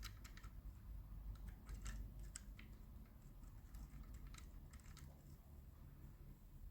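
Faint, irregular light clicks and ticks of a chrome paint pen's tip working around a model fire truck's wheel hubs.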